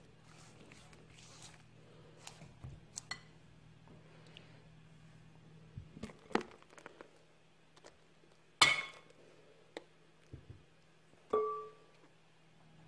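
Glass mixing bowls clinking and knocking as they are handled: light taps and scrapes of a silicone spatula in the bowl, then a sharp clink of glass on glass about two-thirds through, and a ringing knock of a glass bowl near the end.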